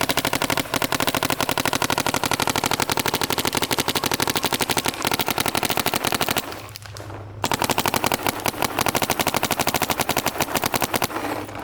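Planet Eclipse CS2 paintball marker firing fast strings of shots, each a sharp pop. Two long strings, broken by a pause of about a second just past the middle.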